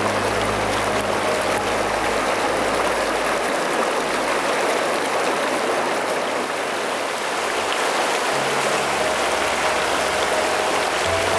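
Shallow mountain stream rushing and burbling over rocks, a steady, even sound of running water.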